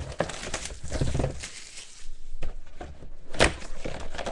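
A cardboard trading-card hobby box being handled and opened by hand: irregular rustling and scraping of cardboard and packing, with a sharp knock about three and a half seconds in.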